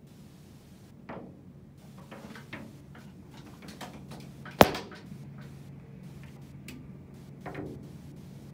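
Turkey vulture's beak knocking on window glass: scattered light taps and one sharp, much louder knock about four and a half seconds in.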